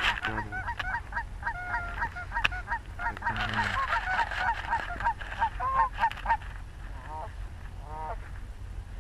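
A flock of geese honking, many short calls overlapping in a dense chorus that thins out to a few scattered honks after about six seconds.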